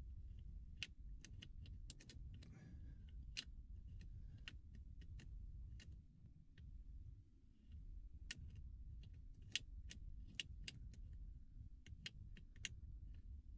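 Irregular small metallic clicks and ticks of a Yale three-lever mortice lock being picked in hand, with a bent-nail tension tool and wire working the levers. A steady low rumble of handling noise lies under them.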